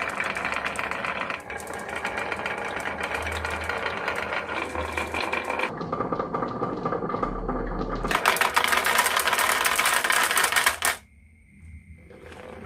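Marbles rolling and clattering down a wooden marble run, a dense stream of rapid clicks that grows brighter about eight seconds in and stops abruptly near the end.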